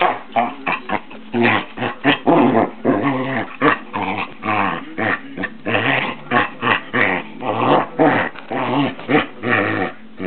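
Dogs play-growling in short, repeated bursts with wavering pitch as they wrestle.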